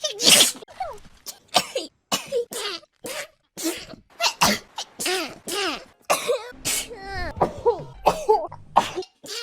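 A rapid string of short sneezes by several young women, edited one after another: about a dozen in nine seconds. Each is a sharp burst followed by a brief voiced tail, and some sound cough-like.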